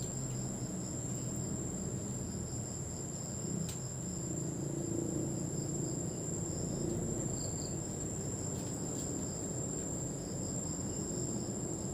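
Steady chorus of insects: a continuous high-pitched trill with a fainter pulsing chirp under it, over a low hum of outdoor ambience.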